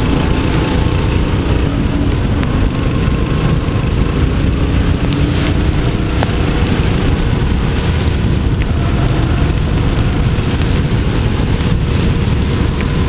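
Rental kart engine running at speed on a wet track, heard from an onboard camera, under a steady wash of tyre spray and wind noise on the microphone. The engine note rises and falls a little, with a few faint ticks.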